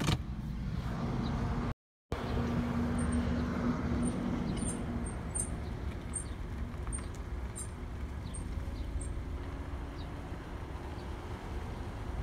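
2016 Mazda CX-5 rolling at low speed with a steady low road rumble, and short, high-pitched squeaks repeating about once or twice a second from about three seconds in until about nine seconds in. The sound cuts out completely for a moment just before two seconds in.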